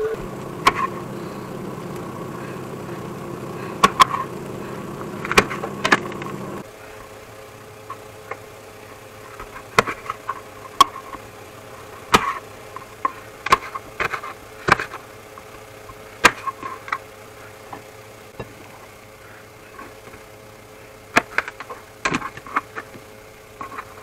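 Kitchen knife cutting vegetables on a plastic cutting board: irregular sharp taps of the blade striking the board. A steady low hum runs under them and stops about six and a half seconds in.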